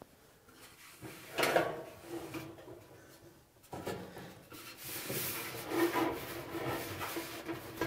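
Handling noise of a dryer's drive belt being worked around the motor pulley and under the spring-loaded idler pulley: a knock about a second and a half in, then uneven rubbing and light clatter from the belt, pulley and metal idler bracket from about four seconds on.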